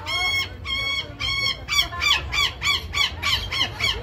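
Parrot squawking over and over in harsh, grating calls: a few drawn-out squawks, then a quickening run of short ones at about four a second.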